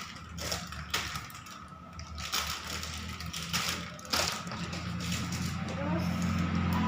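Plastic toy pieces and packaging being handled: scattered clicks, knocks and rustles of small plastic parts such as the sand-kit pump, scoop and moulds. A low steady hum builds up near the end.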